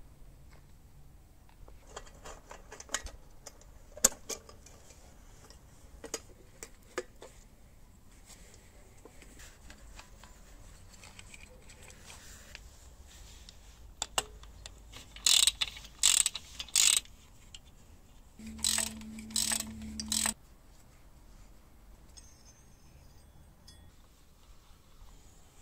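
Metal clicks and clanks of hand tools working on old motorcycle parts. These are followed by three short, loud noisy bursts in quick succession, then a low hum of about two seconds with more bursts over it.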